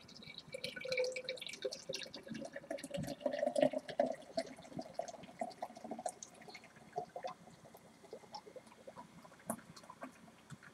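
Carbonated hard seltzer poured from a tall 25-ounce can into a large glass mug: a gurgling pour that rises in pitch as the mug fills. After about six seconds it thins to a trickle, with small crackles of fizz.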